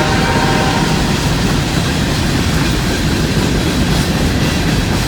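Empty CSX coal train rolling past close by: a steady rumble and clatter of wheels on rail. The last of the locomotive's horn trails off about a second in.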